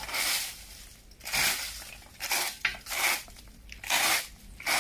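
A rake scraping and dragging through dry yard debris in repeated strokes, about one a second, each a short scratchy rasp.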